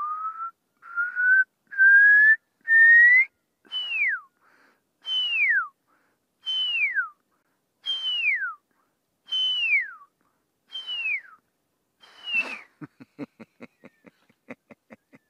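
Human whistled imitation of a pearl-spotted owlet's call, used to lure the owlet in: a run of rising whistled notes climbing in pitch, then a series of loud notes that each slide steeply down, about one every second and a half. A quick run of short clicks follows near the end.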